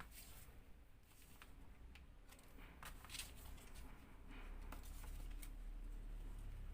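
Faint rustling and crinkling of a sheet of origami paper being handled and folded: a scattering of short crackles over a low steady hum.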